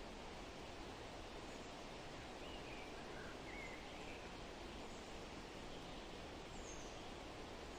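Forest ambience: a steady, even hiss, like wind in the trees, with a few faint, short bird chirps scattered through it, mostly in the middle and one higher chirp near the end.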